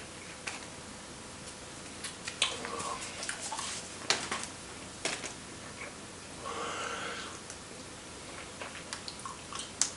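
Paper and packaging rustling and crinkling in short, scattered crackles, with a longer soft rustle about six and a half seconds in and a few small clicks near the end.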